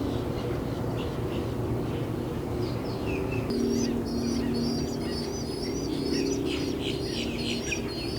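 Small birds chirping. From about three and a half seconds in, one repeats a short high warbled note about twice a second, over a steady low hum.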